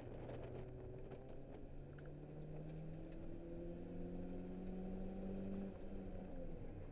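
Holden Apollo's engine heard from inside the cabin, pulling with a slowly rising pitch for about five seconds, then dropping suddenly near the end. Light clicks and rattles sound over it.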